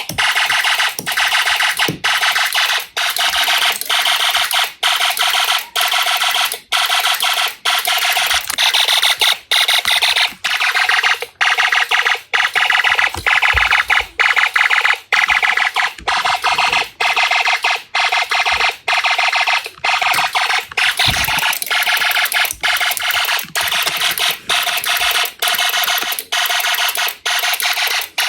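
Snap Circuits fire alarm system sounding in alarm: a loud, harsh electronic alarm tone from a small speaker, broken by short breaks roughly every half second to second.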